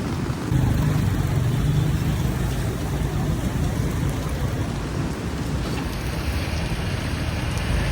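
Heavy rain falling, with street traffic passing; an engine's low rumble comes up about half a second in and eases off after a few seconds.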